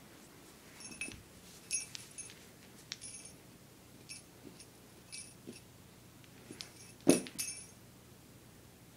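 A small jingle bell shaken in about a dozen short jingles, the loudest with a light thump about seven seconds in.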